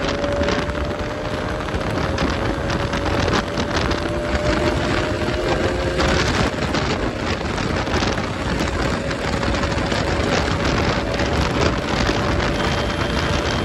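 Heavy wind buffeting on the microphone of a motorcycle at highway speed, over the faint, steady note of a Bajaj Pulsar RS200's single-cylinder engine, which climbs slowly in pitch.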